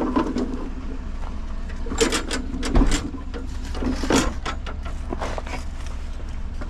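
Scattered knocks, clunks and rattles of a push lawnmower being handled and lifted for loading into a pickup truck, over a steady low hum.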